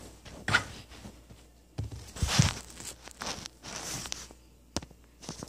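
Handling noise: cloth rustling and knocks as the phone and fabric are moved about, in short irregular bursts. The loudest is a knock with a rustle about two and a half seconds in.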